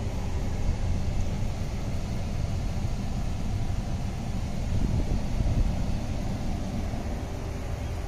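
2011 Dodge Ram 1500 idling with its A/C blower running, a steady low rumble with hiss.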